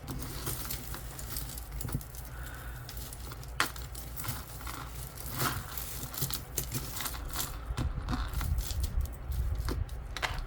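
Metal costume jewelry clinking and rattling as pieces and chains are handled and sorted, a scatter of light clicks over a steady low hum.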